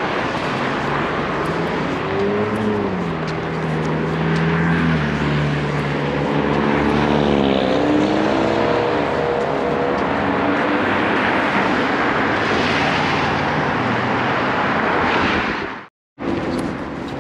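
City street traffic: continuous road noise with a vehicle engine that rises in pitch, holds steady, then climbs and falls again as it drives past. The sound cuts out for a moment near the end.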